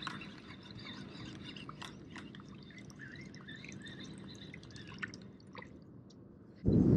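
Faint water drips and small clicks with a few faint bird chirps. Near the end a sudden loud rush of wind on the microphone sets in.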